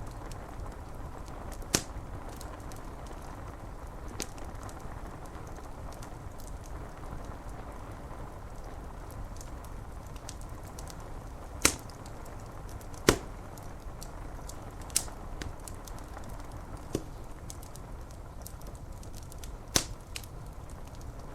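Wood fire crackling, with about half a dozen sharp pops scattered through, over a steady hiss of rain on window glass.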